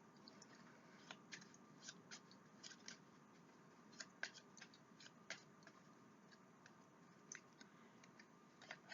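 Faint, irregular clicks and light snaps of tarot cards being handled and laid out on a table, over a quiet room.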